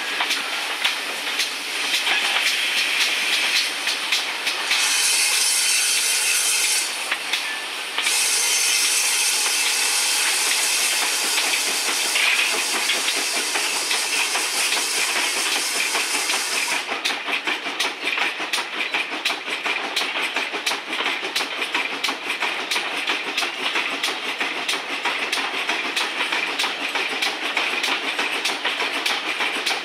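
Train hauled by GWR pannier tank locomotive 1369 running along the line, its wheels clattering steadily over the track. A loud steam hiss from the locomotive comes in about five seconds in, drops out briefly, and stops about seventeen seconds in.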